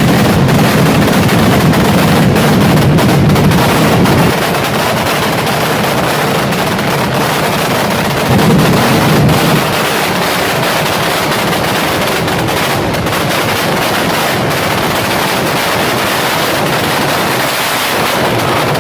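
Fireworks going off in a dense, continuous barrage of rapid crackling and popping reports that run into each other. Louder for the first four seconds and again briefly about eight seconds in.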